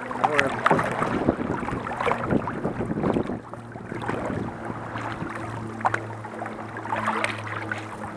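Canoe paddling through river current: water rushing and splashing around the hull and paddle strokes, busiest for about the first three seconds, then quieter. A steady low hum runs underneath in the quieter part.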